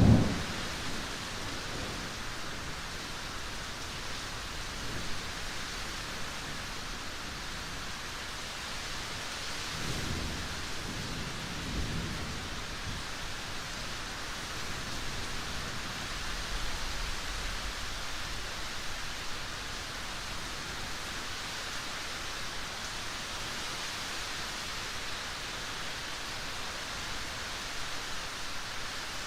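Steady rain hiss with low rumbles of thunder about a third of the way in, and a fainter rumble a little later.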